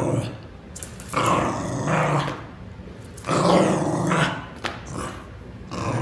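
Corgi growling in play over a plush toy, in bursts of about a second and a half with short pauses between, picked up by a camera's built-in microphone.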